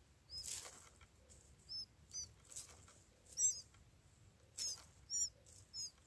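Jungle babbler nestlings giving short, high-pitched begging cheeps in small groups every second or so, with a few brief rustles between them.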